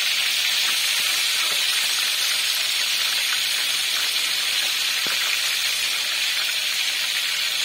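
Pieces of snakehead fish deep-frying in a pan of hot oil, a steady sizzle with no let-up.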